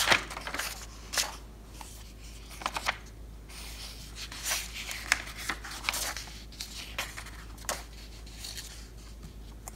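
Pages of a paperback workbook being flipped and turned by hand: a string of short paper rustles and swishes.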